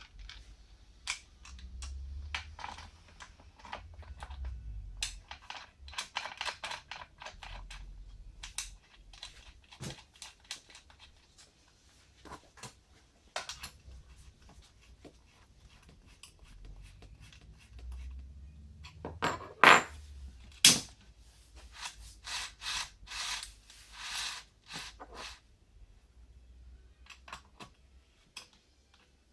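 Handling noise as a new STIHL MS500i chainsaw and its packaging are unpacked: a run of clicks, clatters and rustles, with two sharp knocks about a second apart a little past the middle as the loudest sounds.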